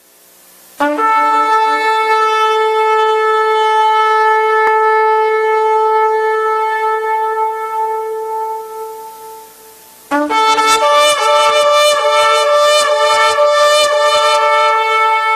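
Shofar (ram's horn) blowing one long, steady blast that fades out after about nine seconds. A second blast follows, broken into rapid, fluttering short notes.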